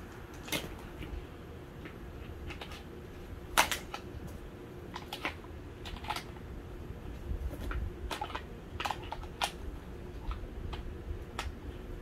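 Plastic parts of a take-apart toy bulldozer clicking and knocking as they are handled and fitted together, and a plastic toy screwdriver turning a screw into the body. Scattered sharp clicks, the loudest about three and a half seconds in.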